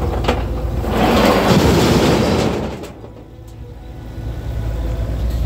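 Avant compact loader's engine running while a bucketload of soil and rubble tips into a steel skip. The dumping makes a loud rushing, rattling pour from about a second in for nearly two seconds, then the sound drops away sharply.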